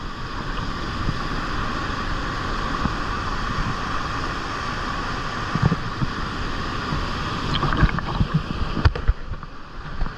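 Steady rushing of a mountain river's water, with wind buffeting the microphone.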